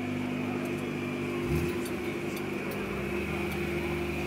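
Race car engines idling. About a second and a half in, another engine catches and settles into a steady idle with the others.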